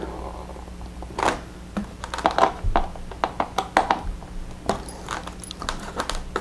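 A hand screwdriver driving screws into the plastic wing-mount fittings of a foam model airplane, with hands on the airframe. It makes a run of irregular small clicks and scrapes.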